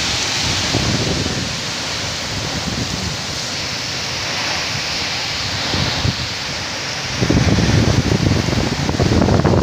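Storm wind and rain, a steady hiss, with gusts of wind buffeting the microphone in low rumbles that grow stronger about seven seconds in.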